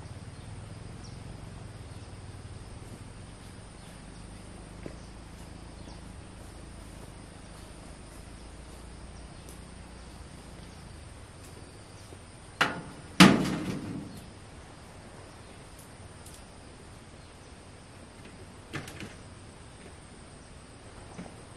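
Two loud metal clanks about half a second apart, a little past halfway, as someone climbs up onto a parked farm tractor, followed later by a few lighter clicks; a steady high insect drone runs underneath.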